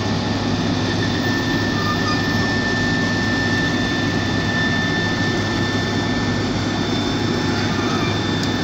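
Heavy diesel road-construction machinery running steadily, a low engine drone with a steady high whine over it.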